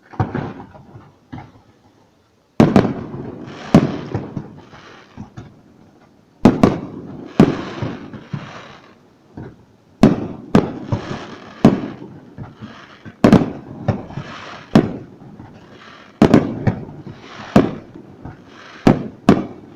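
Aerial fireworks shells bursting in quick succession: sharp loud bangs, roughly one or two a second, each followed by a fading tail, with a brief lull about two seconds in.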